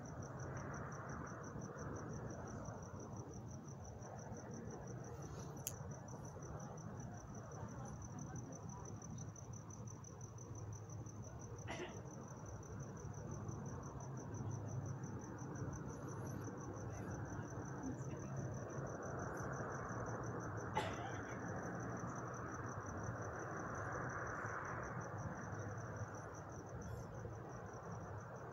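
A cricket trilling steadily at a high pitch in rapid pulses. Under it runs a low background rumble that swells past the middle, and there are a few faint clicks.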